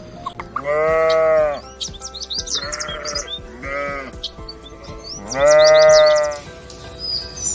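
Sheep bleating: two long, loud bleats of about a second each, with two shorter, quieter bleats between them.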